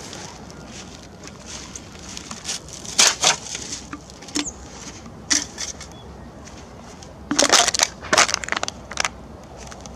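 Plastic carrier bag holding empty beer cans and bottles, crinkling and rustling in bursts as it is handled and set down in dry grass. The loudest, longest stretch comes about three-quarters of the way in.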